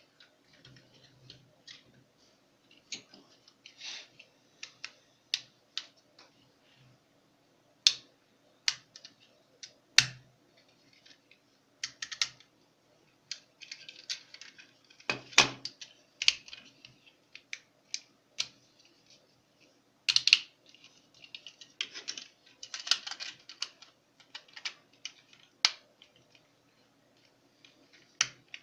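Hard plastic parts of a Tobot X transforming toy being twisted and snapped by hand from robot arms into car form. Irregular sharp clicks and short rattles, with a few louder snaps.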